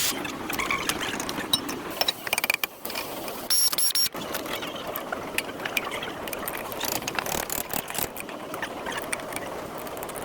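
Hand tools working on a car's rear brake assembly: irregular metallic clicks and clinks, with a couple of short high squeaks about three and a half seconds in.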